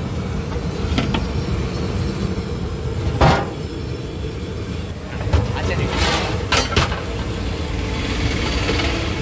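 Steady low rumble of a large aluminium pot of dalcha at a rolling boil over the fire, with a few metal clanks as the lid and ladle are handled; the loudest knock comes about three seconds in, and a quick run of clanks a little past the middle.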